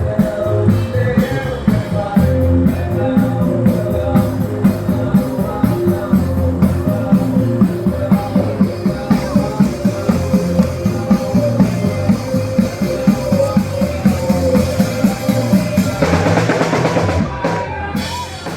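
Rock music with a steady drum-kit beat, getting denser and then cutting off right at the end.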